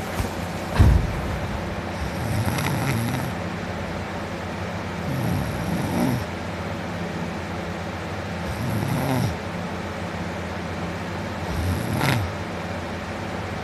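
A man asleep on his back snoring, four slow snores about three seconds apart over a steady background hum. A sharp thump about a second in is the loudest sound.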